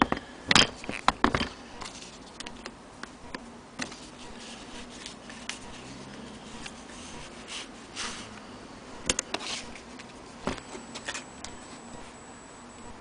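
Scattered, unevenly spaced clicks and knocks from handling an antique Willcox & Gibbs sewing machine and the denim in it. The loudest come in a cluster about half a second to a second and a half in, with more around nine seconds.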